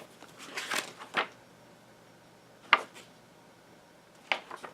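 Handling noise from unpacking: a brief rustle of packaging, then two sharp clicks or taps, one near the middle and one near the end.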